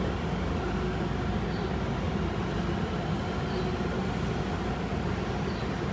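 Steady rumble inside the cabin of a Tobu 50090-series electric train, with a faint steady hum running through it.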